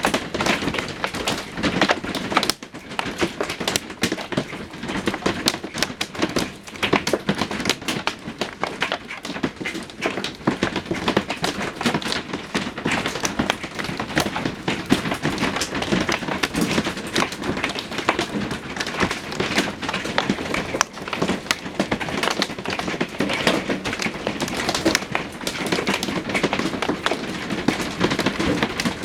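Heavy hail hitting the RV's roof: a dense, unbroken clatter of hard knocks.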